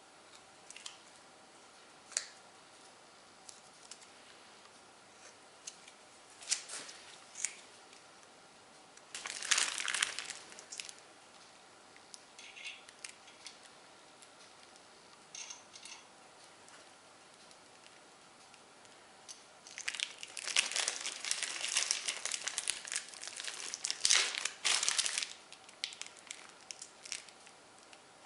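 Crinkling and rustling handling noises, like packaging being worked by hand, in two longer bursts about nine and twenty seconds in, between scattered light clicks and taps.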